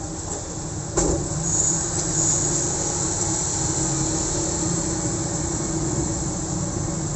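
Road traffic passing close by: motor scooters, minibuses and cars running in a steady din, with a sharp knock about a second in, after which it grows a little louder.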